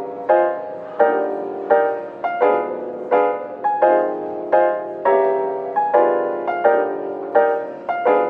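Background lo-fi piano music: soft chords struck at a steady pace, about one every three-quarters of a second.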